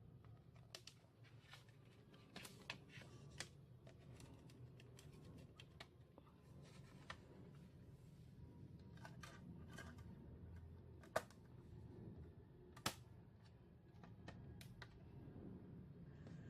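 Faint room hum with scattered small clicks and light taps of handling, two sharper clicks standing out about eleven and thirteen seconds in.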